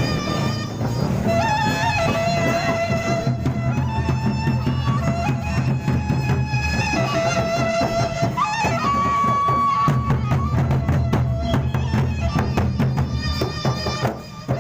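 Gendang beleq ensemble playing: large drums and clashing cymbals beating continuously under a melody of held, sliding notes on a reed wind instrument, with a brief break just before the end.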